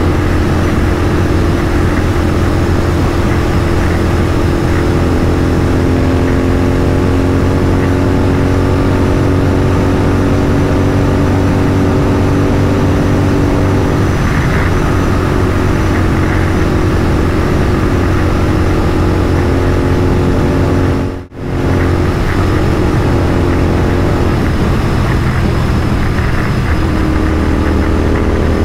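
Royal Enfield 650 parallel-twin motorcycle engine pulling hard at motorway speed, its pitch slowly climbing as the revs build, over steady wind rush. The sound cuts out for a split second about two-thirds of the way through.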